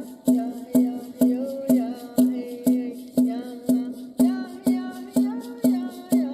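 Native American song: a drum beaten steadily about twice a second, each stroke with a low ring, under a chanted vocal melody.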